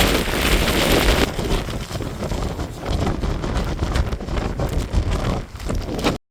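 Strong wind buffeting the microphone in a downpour, a rough, gusting roar that is loudest in the first second or so.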